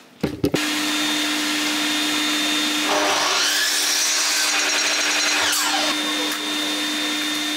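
A workshop dust extractor switches on about half a second in and runs with a steady hum. About three seconds in, a sliding mitre saw's motor spins up, the blade cuts a halving-joint notch in 2x2 softwood, and the motor winds down again about six seconds in.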